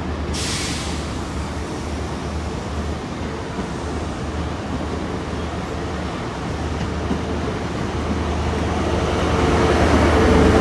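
Class 43 HST diesel power cars running under load as the train departs, a steady low engine hum that grows louder near the end as the rear power car draws close. A short hiss about half a second in.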